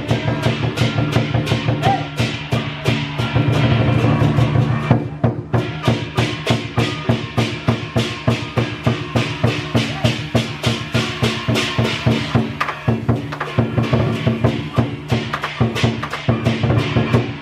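Lion dance percussion: a large Chinese lion drum beaten with cymbals clashing in a fast, steady beat of about four strokes a second over a low ringing tone, with a brief break about five seconds in.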